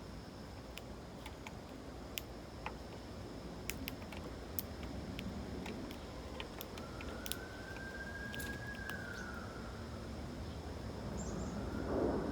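A distant siren wailing, one slow rise and fall in the middle and the next rise starting near the end. Scattered sharp clicks and a steady faint high whine run under it.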